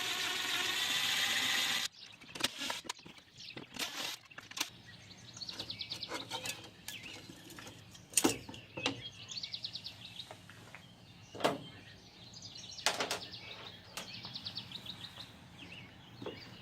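Scattered clicks and knocks of hands working a headlight out of its mount. A loud rushing noise fills the first two seconds and cuts off, and short, fast high trills recur several times.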